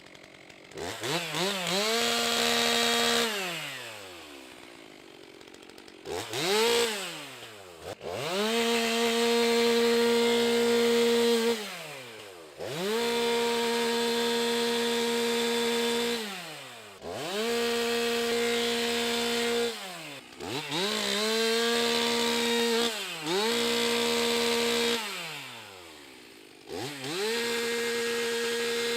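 Stihl MS 362 C-M two-stroke chainsaw bucking a log. It is revved up about seven times, held at a steady high speed for a few seconds each time while it cuts, then dropped back to idle between cuts.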